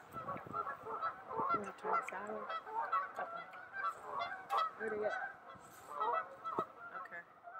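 A flock of geese honking, many short calls overlapping one another without pause.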